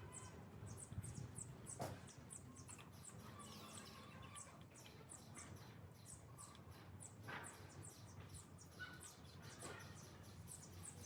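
Faint, rapid high chirping, several short chirps a second, over quiet room tone, with a few soft clicks.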